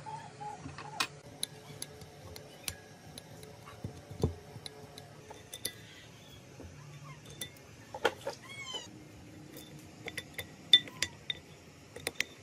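Small metal clicks and clinks of aluminium engine parts and hand tools being handled while a small four-stroke engine is reassembled, with one heavier knock about four seconds in.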